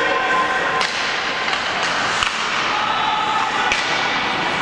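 Ice hockey game noise in a rink: a steady hiss of play and spectators, broken by about four sharp clacks of sticks, puck or boards.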